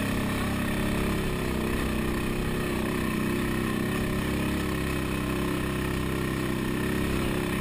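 ATV engine running steadily as the quad climbs a rocky dirt track, heard close up from a camera mounted on the machine.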